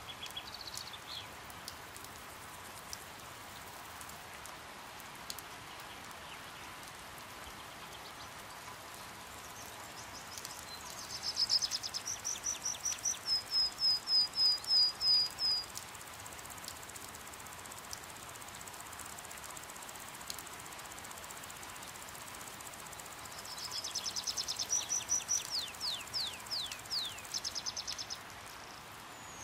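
Steady light rain falling, with a bird calling twice in rapid series of high notes: quick descending notes running into a short trill about a third of the way in, and again near the end.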